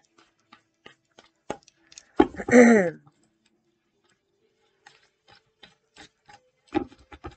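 Deck of oracle cards being shuffled by hand: scattered light clicks and flicks of the cards. A short vocal sound about two and a half seconds in is the loudest thing.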